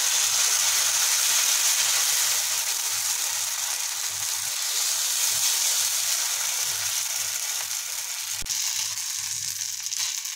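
Samak-rice and sabudana chila batter sizzling on a hot, lightly oiled tawa as it is poured and spread with a ladle. A steady hiss that eases slightly near the end, with a single click about eight and a half seconds in.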